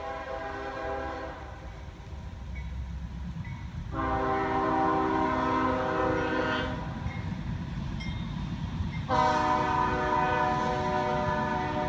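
Freight train locomotive's air horn sounding in long blasts: one dies away about a second and a half in, another starts about four seconds in and holds for nearly three seconds, and a third starts about nine seconds in and is the loudest. Under the horn, the approaching train rumbles low and steady.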